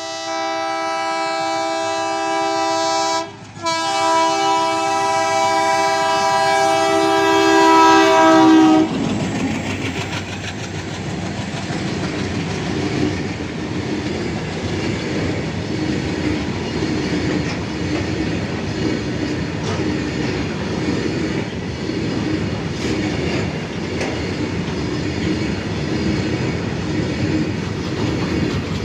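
Indian Railways goods train's locomotive horn sounding two long blasts, the first about three seconds and the second about five, growing louder toward its end. After that comes the steady rumble and clatter of the freight train rolling past.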